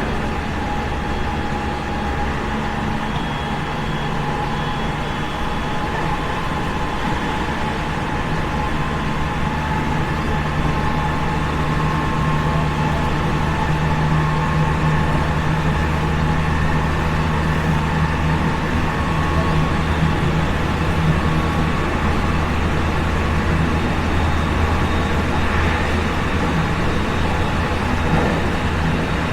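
Running sound inside a JR West 207 series 1000-subseries electric train with a Toshiba GTO VVVF inverter: steady rumble of wheels on rail under a low motor hum, with several faint steady tones from the drive, getting slightly louder over the stretch. The car is labelled an 'abnormal-sound car' for its drive noise.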